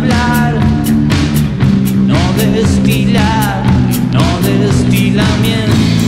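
Rock band playing live: two electric guitars over a drum kit keeping a steady beat.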